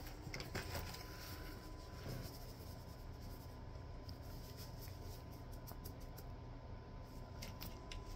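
Faint scratching and scattered light ticks of a furry toy mouse being moved by hand over a hardwood floor edge.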